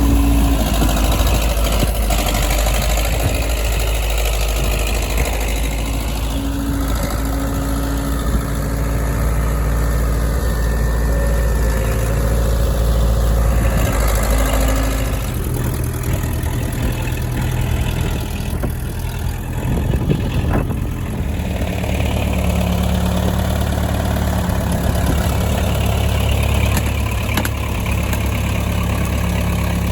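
Loader's engine running steadily, its pitch shifting about halfway through.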